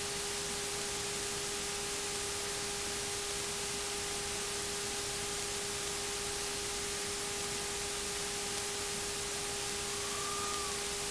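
Steady electronic hiss with a constant low hum tone on the PA-28's cockpit intercom audio feed, and a faint short whistle-like glide near the end.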